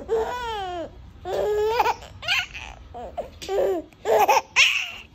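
Baby laughing and squealing in a run of short, high-pitched bursts.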